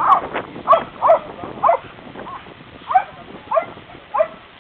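A dog barking repeatedly: about eight short, high barks, roughly one every half second.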